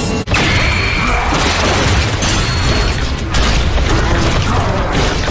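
Anime battle soundtrack: background music mixed with loud sword-clash and impact sound effects, with several sharp hits and booms.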